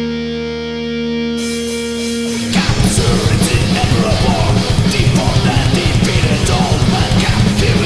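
Thrash metal band recording: a held guitar chord rings out, a cymbal joins near the top about a second and a half in, and about two and a half seconds in the full band crashes in with fast drumming and riffing.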